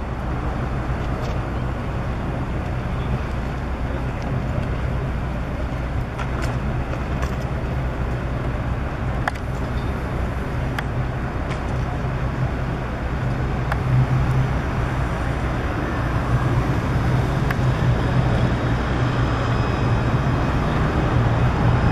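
Street ambience with a tram approaching on street track: a steady low hum over traffic noise that grows louder from about two-thirds of the way in, with a few faint clicks.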